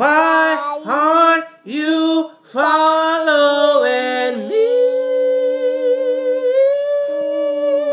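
A man singing a cappella without words: four short phrases that each slide up at the start, then one long held note from about halfway through.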